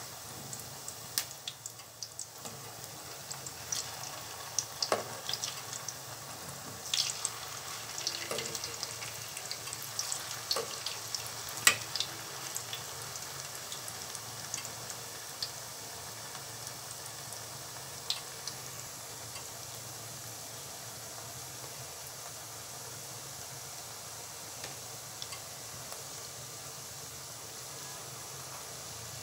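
Dough patties deep-frying in hot oil: a steady sizzle with scattered sharp pops and crackles. The pops are busiest in roughly the first twelve seconds, with one loud crack about twelve seconds in, and then settle to a steadier, even sizzle.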